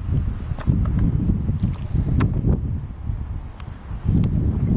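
Insects trilling in a steady, high, finely pulsing chorus, over a loud, uneven low rumble.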